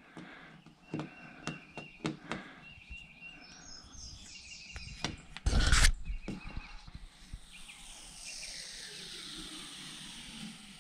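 Vinyl decal transfer tape being handled and peeled back off a boat hull by hand: scattered clicks and taps, a louder rustle of the tape about halfway through, then a soft steady hiss as it is pulled away.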